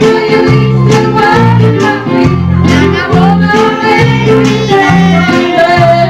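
Electronic keyboard playing a song live, with held bass notes changing about every half second under a wavering melody line.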